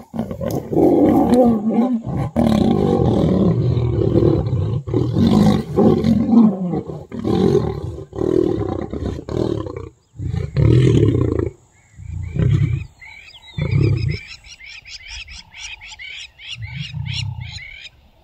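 Male lions fighting, growling and snarling loudly without a break for about ten seconds, then three shorter growls. In the last few seconds a quick, rhythmic run of high chirps comes through.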